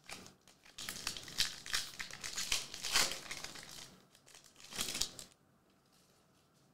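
Foil wrapper of a hockey card pack crinkling as it is torn open and peeled back by hand, for about three seconds, with one more short crinkle about five seconds in.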